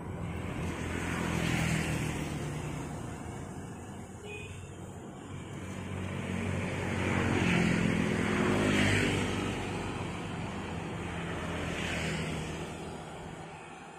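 Road traffic: motor vehicles passing by one after another, the engine and tyre noise swelling and fading several times, loudest about halfway through.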